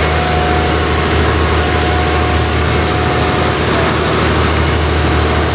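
Heavy engine running steadily with a deep, unbroken low hum.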